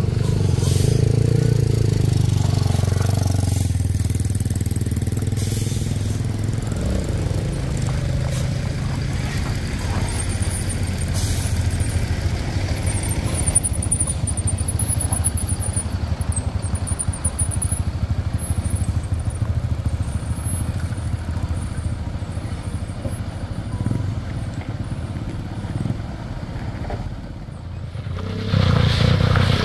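A heavy intercity bus's engine labouring in low gear up a steep, broken incline, a steady low drone that is strongest in the first several seconds and then runs lower. Near the end a second vehicle's engine comes in, suddenly louder.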